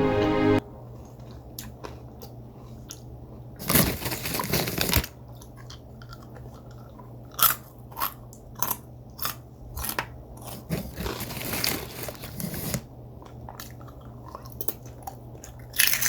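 Someone biting into and chewing crunchy food close to the microphone: a loud crunching bite about four seconds in, a string of short sharp crunches, then a longer stretch of chewing from about ten to thirteen seconds, over a steady low hum.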